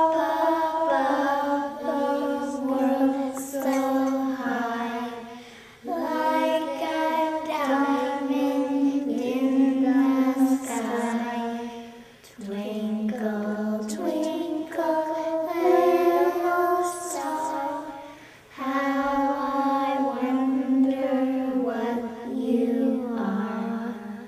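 A high voice singing unaccompanied, a slow melody in four long phrases, each fading out before the next begins.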